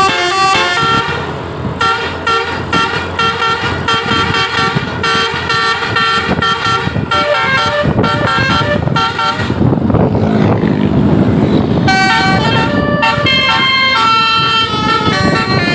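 A bus's basuri telolet horn playing a fast run of melody notes, each note a clear steady tone. About ten seconds in, the tune breaks off for a couple of seconds under a rushing noise, then the horn melody starts again.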